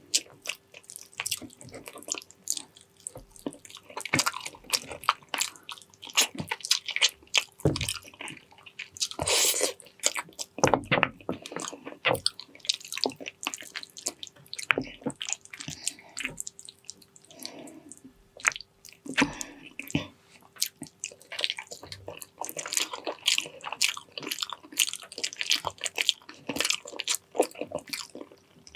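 Close-miked chewing and lip smacking of a person eating soft, gelatinous braised pig's trotters, with many short, irregular mouth clicks throughout.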